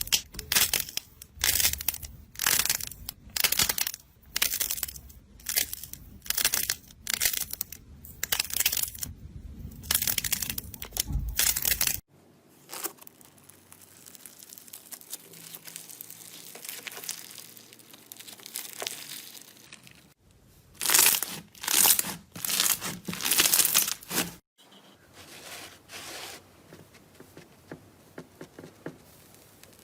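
Slime being squeezed and pressed by hand: a run of sharp squishing strokes about twice a second, then a stretch of softer, quieter handling, then a few more loud strokes.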